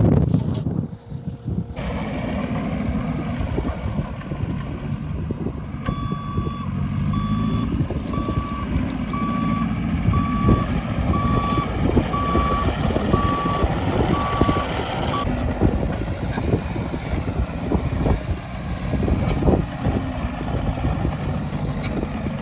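Caterpillar 259 skid steer's diesel engine running while its backup alarm beeps steadily, about once a second, about ten times, then stops: the machine is reversing.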